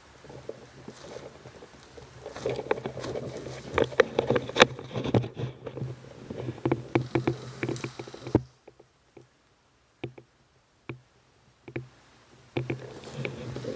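Irregular clicks, knocks and rustling from handling of an airsoft rifle with a camera mounted on it as the player moves, over a low steady hum. About eight seconds in it drops almost to silence, with only a few scattered clicks, then the knocks and rustling start again near the end.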